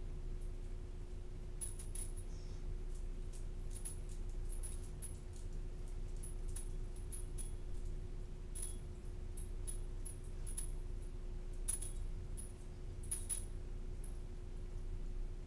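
Short metallic clinks and jingles, irregular and scattered, from a small animal moving about in a wire pet pen. A steady low hum runs underneath.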